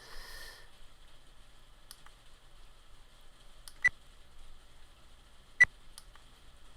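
Bopower 4K action camera's button beep sounding twice, short high beeps about two seconds apart, with a few faint button clicks between them as its settings menu is stepped through.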